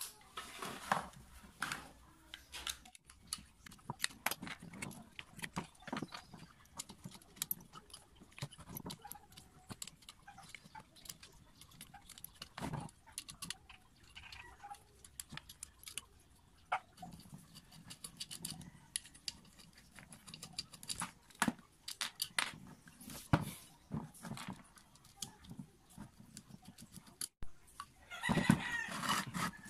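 Scattered clicks, taps and light knocks of plastic and metal parts as a half-horsepower electric water pump motor is taken apart by hand, its fan cover and plastic cooling fan pulled off. A louder, longer noisy burst comes a little before the end.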